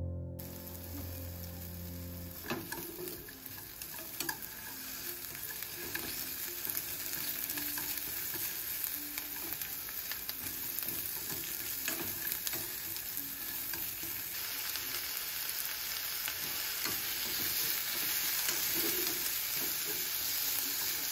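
Sliced onion, then chicken and king oyster mushroom, sizzling in a nonstick frying pan while being stirred with long cooking chopsticks, with occasional light clicks. The sizzle grows louder about two-thirds of the way in. Soft piano music fades out in the first couple of seconds.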